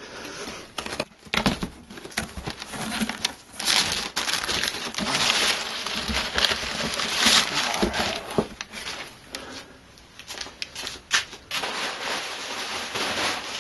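Crumpled brown kraft packing paper rustling and crinkling as it is pulled out of a cardboard shipping box, loudest in the middle, with scattered sharp knocks and scrapes of the cardboard.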